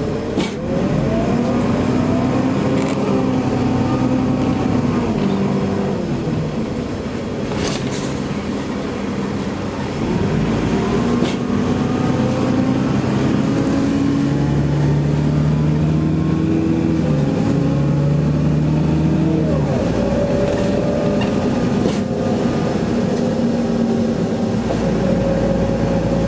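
Nova Bus LFS city bus heard from inside the cabin, its drivetrain running loudly with several tones that rise and fall and change suddenly about ten and twenty seconds in. A few sharp knocks are scattered through, part of the loud thudding that the rider wonders may be a bad transmission.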